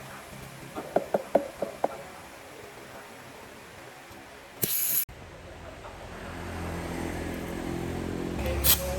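Six quick ringing metal taps from tools, then a half-second hiss of air like a blast from a compressed-air hose during tractor tyre work. After that a low engine hum builds, with another short hiss near the end.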